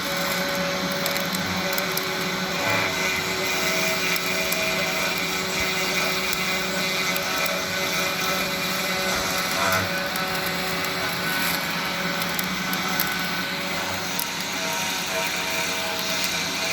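CNC3018 router's 52 mm spindle running steadily, drawing air and dust through a 3D-printed dust shoe. Stepper-motor tones change pitch every few seconds as the machine moves.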